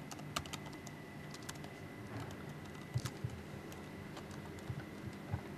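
Typing on a computer keyboard: scattered, irregular key clicks, with a faint steady high whine underneath.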